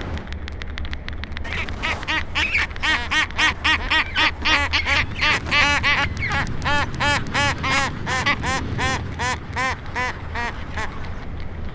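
A bird giving a rapid series of short calls, about three a second, that starts about a second and a half in and stops near the end, over a steady low rumble.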